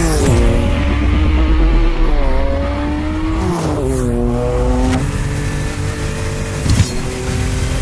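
Porsche 962's turbocharged flat-six race engine as the car sweeps past and pulls away: the pitch drops sharply as it passes, climbs as it accelerates, and drops again a few seconds in before running steadily.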